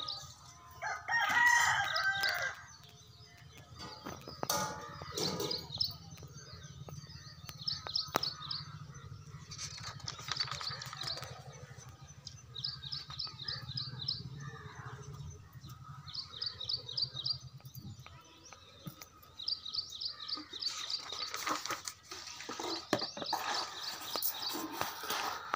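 Birds calling: one loud pitched call about a second in, then repeated quick chirping trills. Paper pages rustle and click now and then as the booklet is leafed through.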